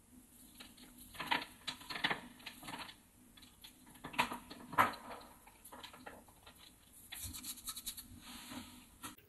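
Chopped walnuts sprinkled by hand over a sandwich, small pieces pattering and clicking onto the creamy topping and the wooden board in several irregular bursts.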